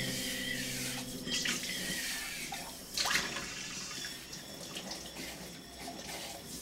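Kitchen tap running into a stainless steel sink while a glass container is rinsed and scrubbed under the stream, with a few sharp clinks and knocks of the glass, the loudest about three seconds in.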